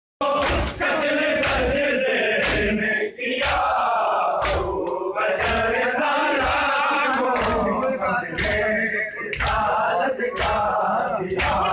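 A group of men chanting a noha in unison, with rhythmic hand slaps on bare chests (matam) landing about once a second.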